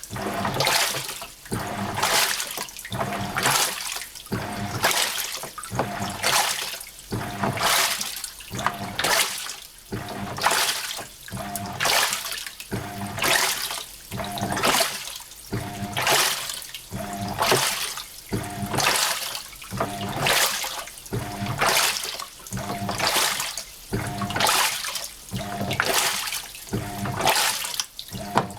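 Hitachi NW-42EF top-loading washing machine agitating its wash: water and laundry sloshing in the drum as the pulsator swings back and forth, a swish repeating a little faster than once a second, with a faint motor whine in each stroke.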